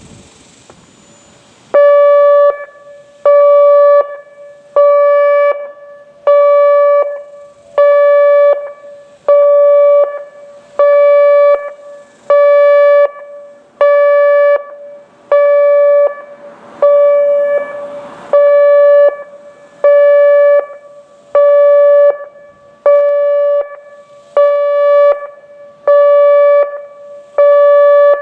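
ATI HPSS-32 electronic outdoor warning siren sounding its Pulse signal during a test: a loud, steady tone switched on and off about once every one and a half seconds. It starts about two seconds in.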